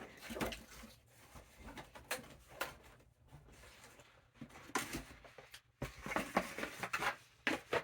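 Packaging being handled during an unboxing: scattered light clicks and rustles, a handful of separate knocks spread across several seconds.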